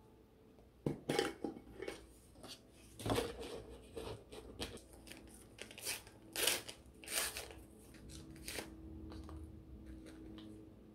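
Pull-ring lid peeled off a tin can with a few sharp metallic clicks, then the crackle and tearing of a paper tea-bag sachet being ripped open and the bag pulled out.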